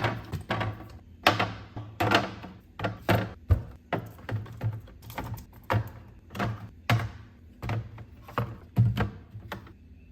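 Groceries and containers being set down and arranged on fridge shelves: a run of clunks and taps, about two a second, that stops shortly before the end.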